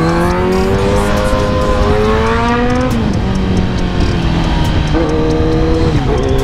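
Sport motorcycle engine accelerating in traffic: its pitch climbs for about three seconds, drops sharply at an upshift, then holds before another gear change near the end. Heard over wind and road rush on a helmet mic.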